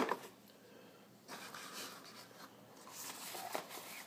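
A knock right at the start, then faint rustling and scraping of a small cardboard box being handled, with a couple of soft taps near the end.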